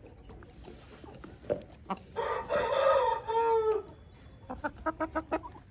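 An aseel rooster crows once, a call of nearly two seconds whose pitch falls at the end, followed about a second later by a quick run of short clucks.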